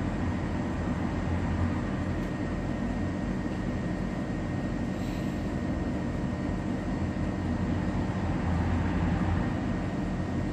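Inside a Tatra T4D tram standing still: a steady low hum with a thin high tone running through it.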